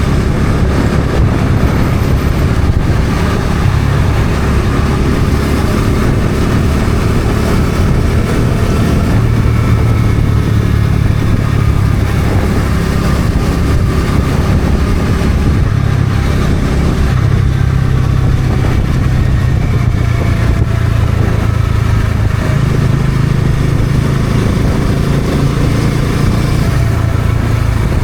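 Bajaj Dominar 400's single-cylinder engine running while riding, heard over a steady rush of wind noise. Its pitch steps up and down a few times with throttle and gear changes.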